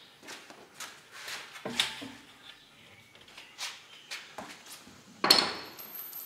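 Scattered light knocks and handling clatter, with one sharp, louder clank about five seconds in that rings briefly.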